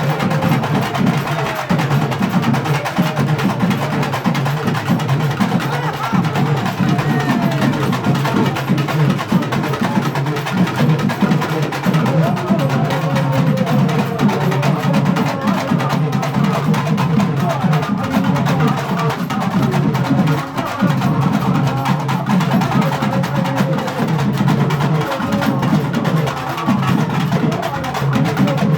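Loud drum-led percussion music with a dense, continuous beat and voices underneath.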